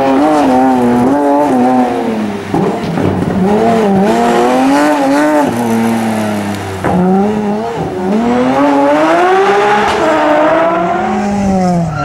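BMW E46 3 Series coupe rally car's engine revving hard, the note climbing and dropping again and again through gear changes and lifts. Partway through it holds a steadier note for about a second and a half.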